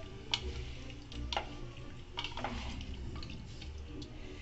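A wooden spatula stirring mutton pieces in an aluminium pressure cooker, with a handful of light knocks and scrapes against the pot over a soft sizzle of the meat in its juices.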